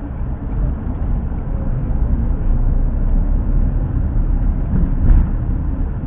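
Steady low rumble of a moving vehicle picked up by an action camera's built-in microphone, with a brief thump about five seconds in.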